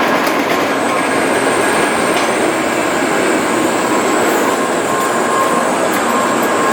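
A Shinkansen train moving past at speed: a steady, loud rush of wheels and air, with a faint high whine over it.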